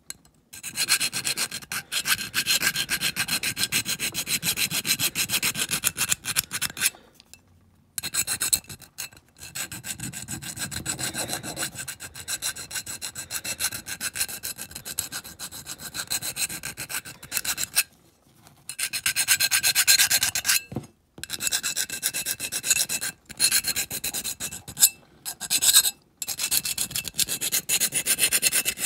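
Hand file rasping along the cut edges of a die-cast metal model van's wings in quick back-and-forth strokes, smoothing off sharp edges. The filing comes in long bouts with short breaks.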